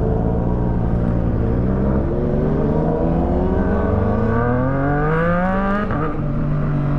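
Motorcycle engine under way, accelerating with its note climbing steadily in pitch for about four seconds, then a gear change drops the pitch sharply about six seconds in before it holds steady.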